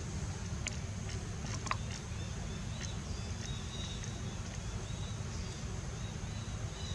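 Outdoor ambience: a steady low rumble with faint high chirps and a steady high hum, broken by a few sharp clicks in the first two seconds.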